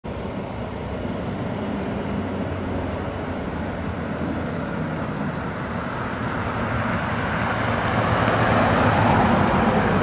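A 1968 Ford Thunderbird with its 429 V8 drives up the street and past, its engine a steady low hum with tyre noise that grows louder and peaks about nine seconds in.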